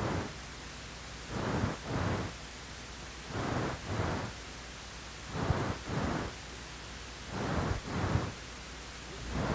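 Background noise from the soundtrack: soft swishing sounds in pairs, about one pair every two seconds, over a steady low hum.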